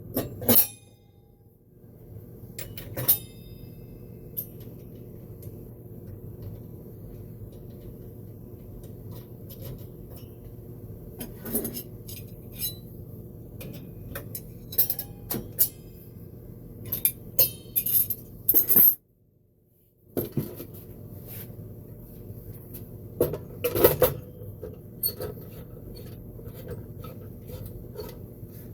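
Metal parts and hand tools clinking and knocking at irregular intervals during reassembly of a radial arm saw, over a steady low hum. The sound drops out briefly about two-thirds of the way through.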